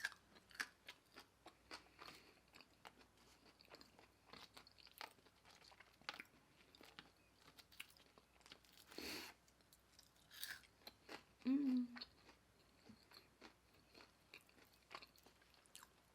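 A person chewing and biting food close to the microphone: many small, quiet mouth clicks, with a breath about nine seconds in and a short closed-mouth hum near twelve seconds.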